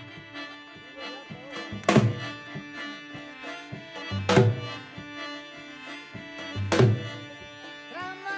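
Balochi chap dance music: a harmonium playing a held, many-toned melody over a drum beat, with three heavy bass strokes about two and a half seconds apart and lighter beats between. A man's singing voice comes in near the end.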